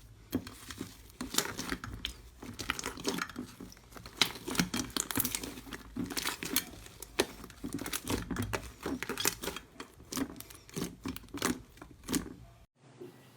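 Slime being squeezed and stretched by hand, giving irregular crackling and popping; it cuts off abruptly near the end.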